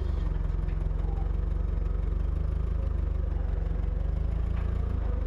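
A steady low engine drone with a fine, even pulse and no change in level.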